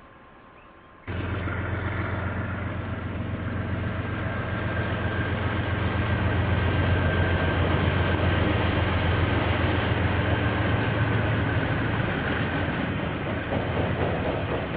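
KiwiRail diesel-hauled train passing, starting abruptly about a second in: a steady low locomotive engine drone with rail and wheel noise over it. The low drone eases near the end.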